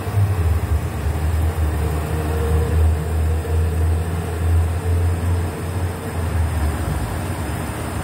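Steady low rumble from a stovetop steamer: water boiling in the pan on the burner under a dish of fish.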